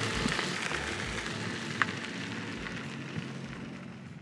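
Steady outdoor background hiss with a few faint clicks, fading down near the end.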